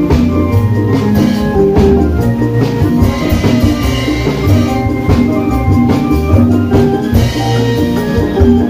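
Obrog band music: drums made from large plastic barrels beaten with wooden sticks in a steady beat, with a tambourine and a bright pitched melody on top.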